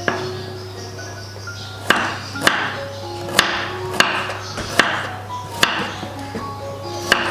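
Chef's knife slicing through shallots and knocking on a wooden cutting board: a series of sharp chops, most starting about two seconds in and coming less than a second apart, over light melodic background music.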